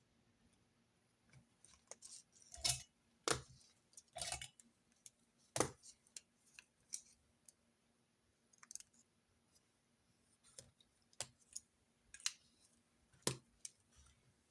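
Handling of pens and paper during handwritten note-taking at a desk: scattered, irregular clicks and taps with a few brief rustles, the loudest a cluster about three to four seconds in, a sharp tap near six seconds, and another near the end.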